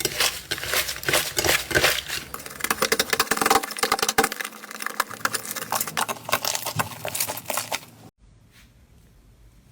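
Slime being squeezed and pressed by hand, with dense crackling and popping clicks that cut off abruptly about eight seconds in.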